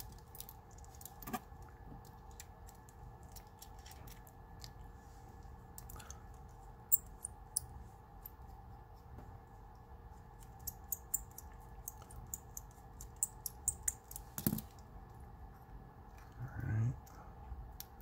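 Small metal clicks and taps as a steel tool is worked inside a Master Lock 220 padlock to take it apart, with one sharper knock late on, over a faint steady hum.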